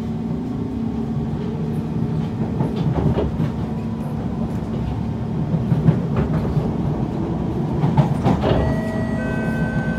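Kawasaki C151 MRT train running along the track, heard from inside the carriage: a steady rumble of wheels and running gear with a few short clicks. A steady motor whine of several held tones comes in near the end.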